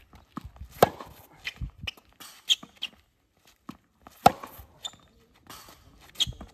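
Tennis ball struck with a racket: two sharp two-handed backhand hits, about a second in and just past four seconds, with fainter knocks of the ball and shoe scuffs on the hard court between them.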